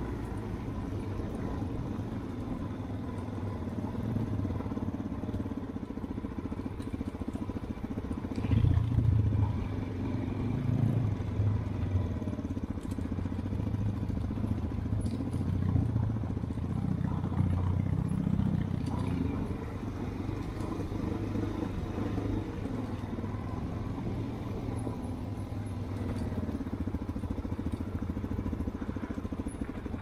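Small dirt bike engine running at low revs in a low gear, swelling louder a couple of times in the middle. The rider is descending a slope with the bike held in second gear for engine braking.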